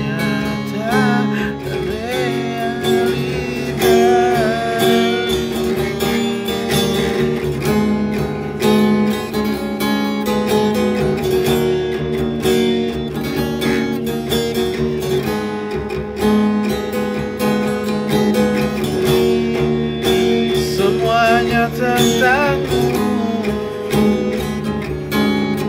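Acoustic guitar strummed steadily through an instrumental break between sung verses, with a brief wordless vocal line about a second in and again near the end.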